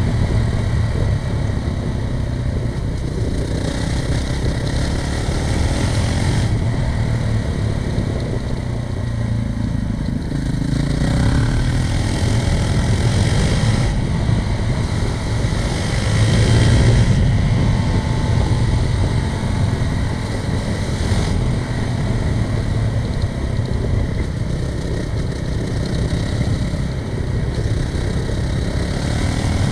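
Honda CRF450RL dirt bike's single-cylinder four-stroke engine running under way, its note swelling with the throttle a couple of times and loudest about seventeen seconds in.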